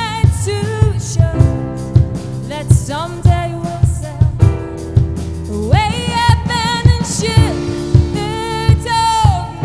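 A song with a woman's voice singing a wavering melody over held keyboard synth chords and a steady drum beat.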